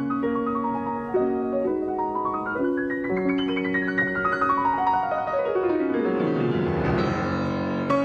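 Solo Steinway concert grand piano playing classical music in fast arpeggiated runs. The runs climb into the high treble about three seconds in, then cascade down into the bass, where they build into a dense, ringing swell near the end.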